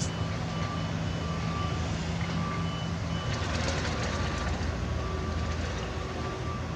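A construction vehicle's reversing alarm beeping about once a second, over the steady low rumble of its engine.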